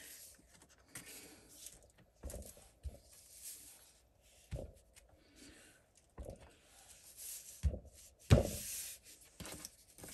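Rubber stamp and card stock handled on a craft desk: soft rustling of paper with several light thumps as the background stamp is pressed down and lifted, the firmest about eight seconds in.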